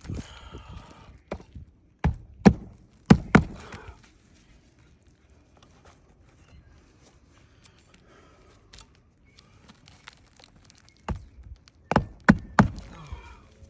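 Hammer strikes fastening a replacement asphalt shingle: two short runs of about four sharp knocks each, a little over 2 s in and again near the end, with rustling of the shingle being handled between them.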